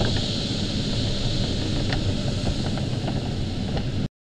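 Steady rush of airflow noise inside the cockpit of an LS-4a glider in flight, with a few faint clicks; it cuts off suddenly about four seconds in.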